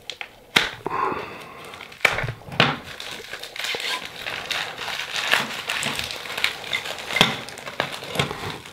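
Crinkly paper wrapping printed with USPS Priority Mail markings being pulled off and crumpled by hand: continuous crinkling and rustling with a few sharper crackles.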